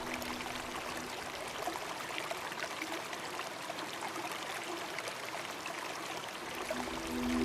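Running water: a steady trickling and babbling with many small splashes.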